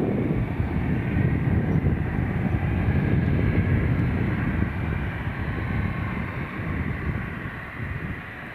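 Airbus A319-112 airliner with its CFM56 jet engines running: a steady, loud rumble and rush of noise that eases off over the last few seconds.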